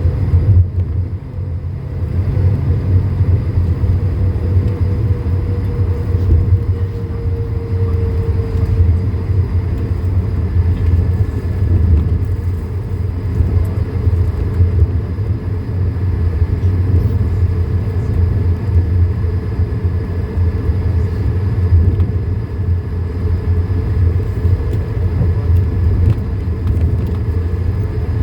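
Cabin noise of an Airbus A220-300 taxiing: the steady low rumble of its two Pratt & Whitney PW1524G geared turbofans at taxi power and the landing gear rolling on the taxiway. A faint whine fades away over the first several seconds, and a thin high tone joins about a third of the way in.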